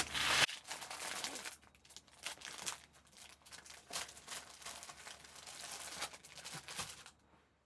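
Crinkling and rustling as the printed cross-stitch fabric is handled, in irregular crackly strokes that stop shortly before the end.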